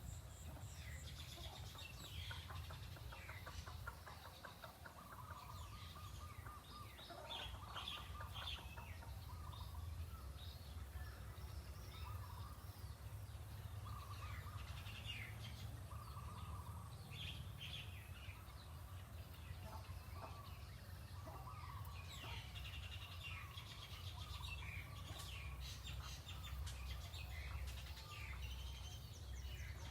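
Birds chirping and calling, many short calls, over a low steady rumble.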